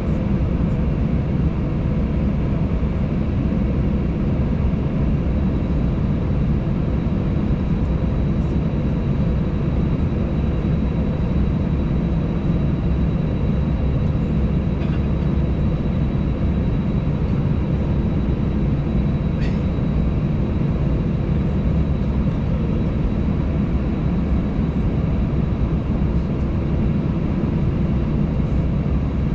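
Steady low rumble inside an Airbus A320's cabin while it waits on the ground: engines idling and cabin air running, with thin steady whines over the top. A faint brief click about two-thirds of the way through.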